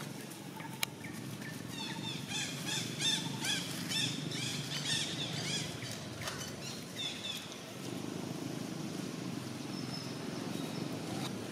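Outdoor ambience with a quick run of short, high chirping calls from an animal, several a second, that fades out after about six seconds, then a few fainter calls.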